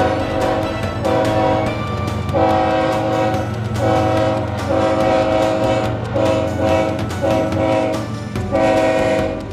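Nathan K5HLL five-chime air horn on a CSX ES44AH locomotive sounding a long run of separate blasts, some short and some longer, in a horn show. A steady low rumble from the locomotives' diesel engines runs underneath.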